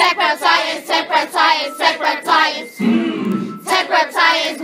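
A class of students singing together in unison in short rhythmic phrases, with a brief break about three seconds in.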